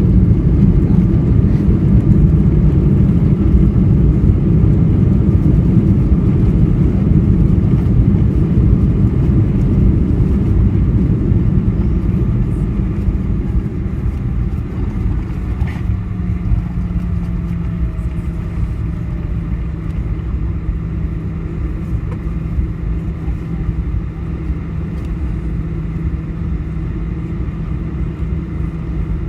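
Cabin noise of a Boeing 737-900ER on the ground after landing: a loud, steady rumble of wheels and engines that eases off about halfway through as the jet slows, leaving a steadier hum with a low held tone.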